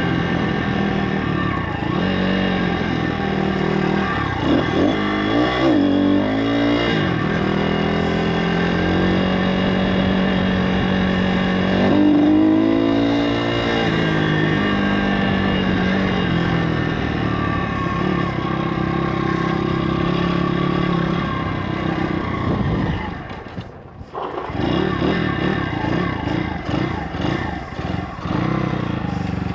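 Stomp pit bike's YX 160cc single-cylinder four-stroke engine running under way, its note rising and falling with the throttle several times; about three-quarters of the way through the engine sound drops away sharply for a moment, then picks up again. The engine is not lifting on the throttle as it should, which the rider puts down to the carburettor and timing needing adjustment.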